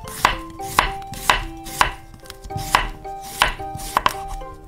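Knife chopping on a cutting board, a sharp chop roughly twice a second, about nine in all.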